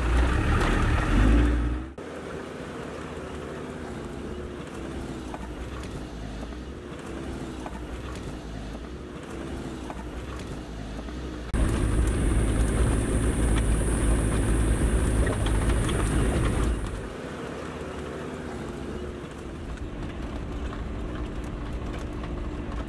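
Land Rover Defender driving on a rough mountain dirt road, its engine running steadily, in several cut-together stretches. A louder stretch starting about halfway and lasting some five seconds has a heavier low rumble with a steady high-pitched whine over it.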